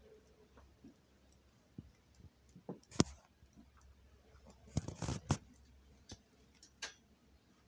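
A few sharp clicks and knocks over quiet room tone: one loud knock about three seconds in, a quick cluster of them around five seconds, and a lighter one near the end.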